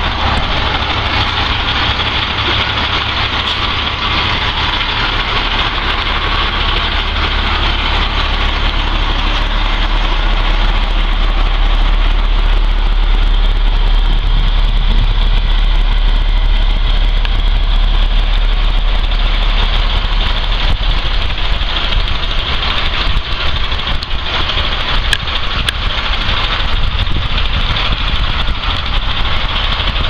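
A 1994 Blue Bird school bus engine idling steadily, getting a little louder about ten seconds in.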